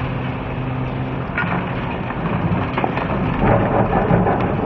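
Cat 390F excavator's C18 diesel engine running under load as its hydraulic crusher jaws bite into reinforced concrete. Scattered sharp cracks and a denser crunching of breaking concrete build up about three and a half seconds in.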